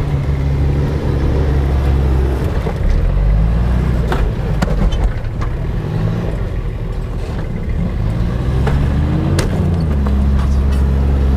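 Toyota Hilux Surf's engine revving up and falling back again and again as it works under load on a steep climb, rising in pitch towards the end and holding a steady high rev. A few sharp knocks come through about four seconds in and again near nine seconds.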